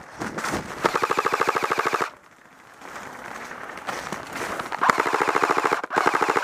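Airsoft electric rifle firing on full auto: a rapid, even rattle with a buzzing whine from the gearbox cycling. It comes in three long bursts, the first about a second in, the last two close together near the end.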